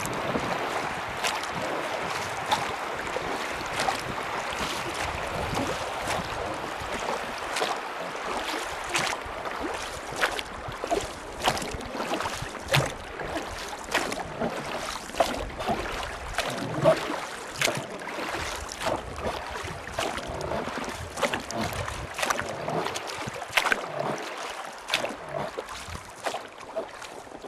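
River water rushing, with wind on the microphone; after about eight seconds many irregular sharp splashes and knocks come through it.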